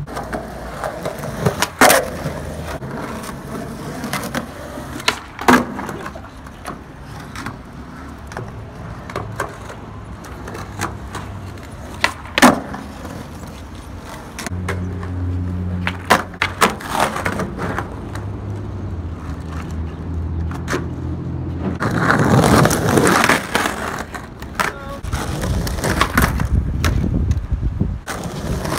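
Skateboard rolling on rough asphalt, with several sharp clacks of the board popping and landing, and a louder stretch of rolling noise about three quarters of the way through.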